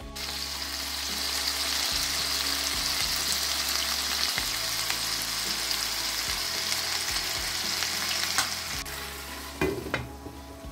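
Chicken leg quarters frying in hot oil in a nonstick pan: a steady sizzle with crackling spits. Near the end the sizzle dies down, and a glass lid is set on the pan with a clink.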